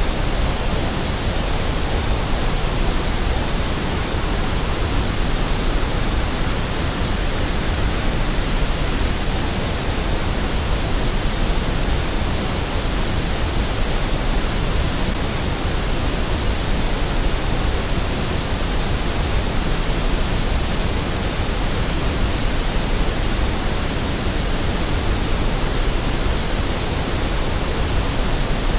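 Steady white noise: an even, unchanging hiss spread across all pitches.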